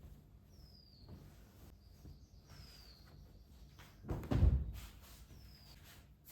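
A bird calling with short high whistles that fall in pitch, repeated about every two seconds. A heavy low thump about four seconds in is the loudest sound.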